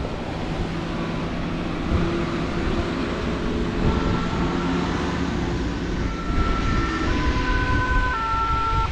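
Tram passing on a wet bridge, over steady wind and road rumble. From about halfway in, its electric drive gives off a high whine in steady tones that jump in pitch three times as it moves.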